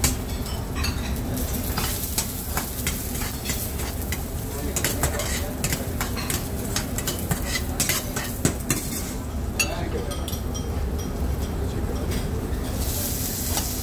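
Food sizzling in a stainless steel sauté pan while metal tongs and spoons clink and scrape against the pan and bowls, many short clicks over a steady low hum. The sizzle rises to a louder hiss near the end.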